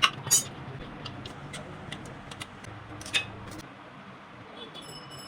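Motorcycle rear brake and wheel giving light, irregular clicking and ticking, with two sharp clicks at the start and another near the middle. A brief, faint high-pitched tone comes near the end.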